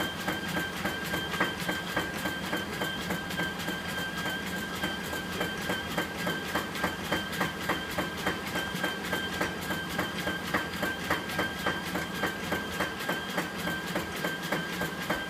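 Dog treadmill running with a steady high-pitched motor whine, while a German Shepherd's paws strike the moving belt in a fast, even rhythm of clicks, about two or three a second, as it trots.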